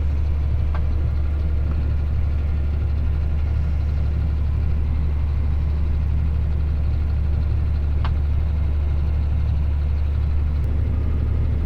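Farm tractor's diesel engine running steadily at a constant speed, a low even drone, with a couple of faint ticks.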